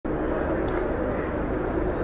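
Lockheed Martin C-130J-30 Super Hercules running its four Rolls-Royce AE 2100D3 turboprop engines as it taxis: a steady drone with a held, even hum from the propellers.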